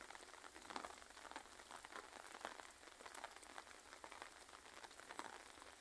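Light, gentle rain falling steadily: a faint patter of many small drops, with no wind.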